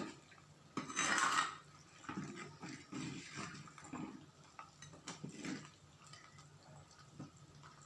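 Country chicken curry boiling in a pot, bubbling with irregular soft pops. A brief louder noise comes about a second in.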